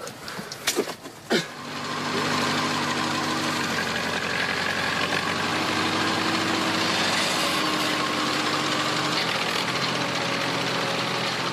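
A few sharp knocks, then from about two seconds in an engine running steadily at an even pitch.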